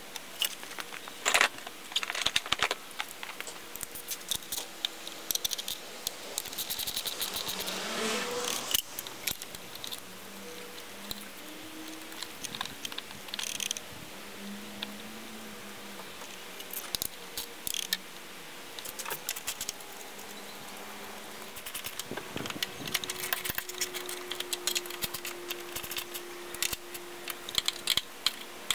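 Scattered clicks, light taps and short rattles of hands working on a car engine's wiring harness connectors and hoses.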